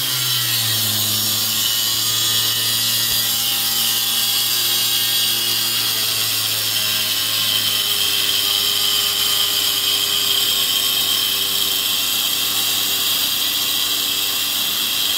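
Angle grinder cutting into the steel frame of a mini bike, a steady high-pitched grinding hiss.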